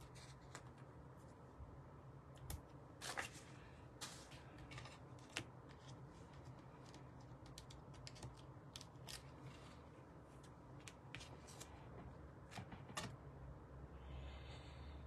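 Faint scattered clicks and brief rustles of paper crafting: card pieces handled and backed with foam adhesive dimensionals. The clearest clicks come about three seconds in and again near the end.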